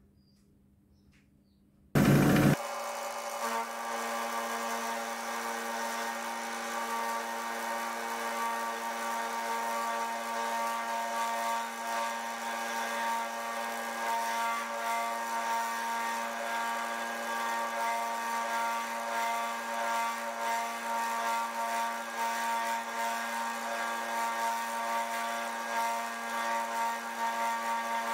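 Milling machine running a 6 mm carbide end mill that is cutting a slot into a metal block: a steady machine whine made of several tones over a rough cutting noise. It starts abruptly with a brief loud burst about two seconds in, after near silence.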